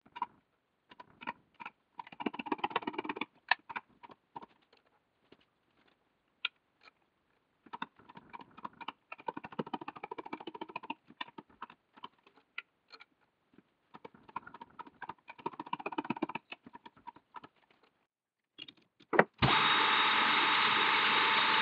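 Steel press-fit work: a press ram forcing knurled thumb-screw caps onto socket-head screws, with irregular spells of small metallic clicks and creaks. Near the end there is a sharp thump, then a metal lathe runs steadily with a hum and a high whine.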